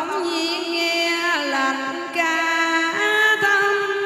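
A woman singing a Vietnamese song into a microphone over musical accompaniment, holding long notes and sliding between pitches.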